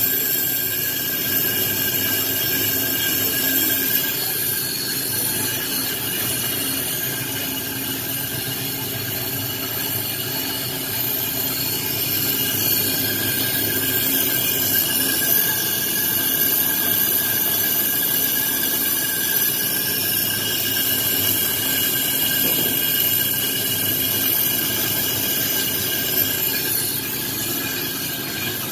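A brake lathe turning the braking surface of a 1955 Ford C600 truck's rear brake drum: the cutting bit shaves the spinning drum with a steady, high-pitched metallic squeal over the lathe's running motor.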